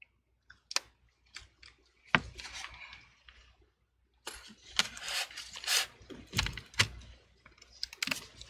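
Gloved hands handling laptop parts, making clicks, knocks and light rattles of plastic and metal. A few scattered clicks come first, then a denser run from about four seconds in as the battery pack is set into the open chassis and its connector is worked onto the motherboard.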